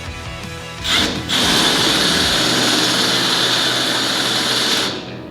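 A handheld power tool running steadily on metal: it starts about a second in, catches again after a brief dip, and stops near the end.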